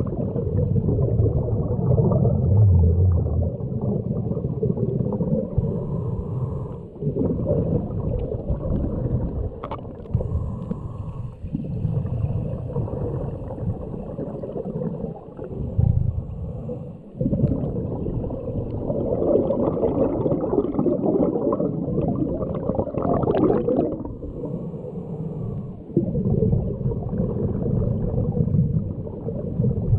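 Muffled underwater sound of scuba divers breathing through their regulators, with gurgling bursts of exhaled bubbles every few seconds.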